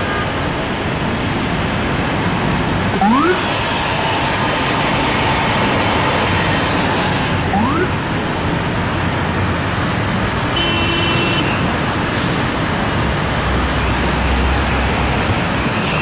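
Busy city street traffic: a steady din of engines and tyres. A high hiss runs for about four seconds early on, two short rising chirps sound a few seconds apart, and a deep rumble like a heavy vehicle passing comes near the end.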